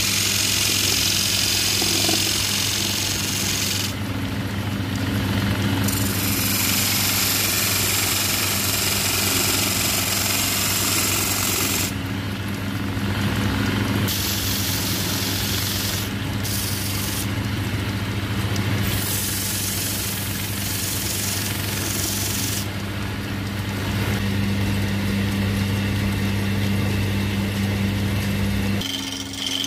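Wood lathe running with a steady motor hum while a hand-held gouge cuts the spinning wooden blank, giving a hiss of shavings that starts and stops several times as the tool is pressed in and eased off. Near the end the cutting noise drops away and the sound changes.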